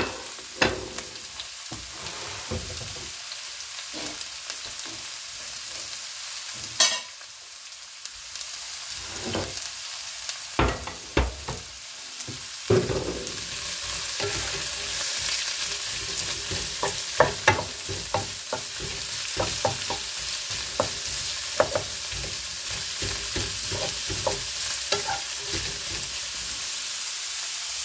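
Sliced carrot, onion and pepper strips frying in hot oil in a pan: a steady sizzle that grows a little louder about halfway through. A wooden spatula stirs and knocks against the pan in many short taps, more often in the second half.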